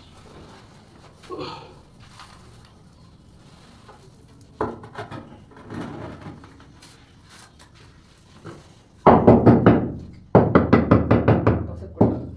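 Hammer tapping on a marble floor slab to bed it into the mortar, in quick runs of sharp taps over the last few seconds, after a single knock earlier on.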